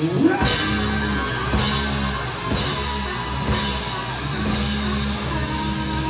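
Live hard rock band playing on electric guitar, bass and drum kit. The full band comes in hard about half a second in, with cymbal crashes about once a second for the next few seconds.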